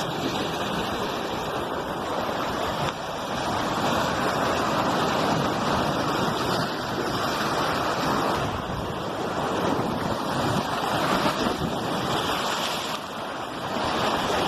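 Sea surf rushing continuously with wind on the microphone, swelling and easing every few seconds.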